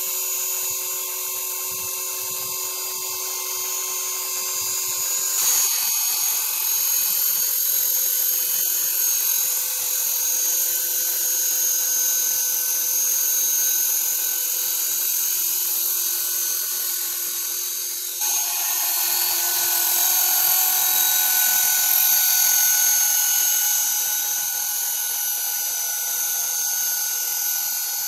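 Small radio-controlled helicopter flying: its motor and rotor give a steady high-pitched whine. The pitch shifts abruptly about five seconds in, and again, louder, about eighteen seconds in, as the throttle changes.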